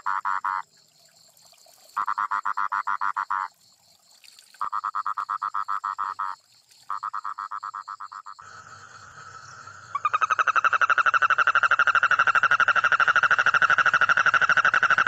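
Toad calling in pulsed trills, each about a second and a half long, repeated four times with short pauses. About ten seconds in, it breaks into one long unbroken trill.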